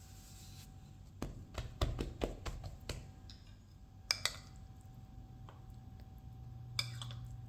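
Light clinks and taps of kitchen utensils against dishes: a quick run of them over a couple of seconds, then a few more scattered later, over a faint steady hum.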